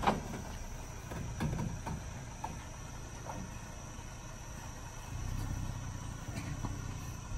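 2018 Toyota Tacoma pickup's engine running low as the truck rolls down off a stack of bricks and blocks, a low rumble that swells about five seconds in, with a sharp knock right at the start and a few faint clicks. A steady high insect drone runs underneath.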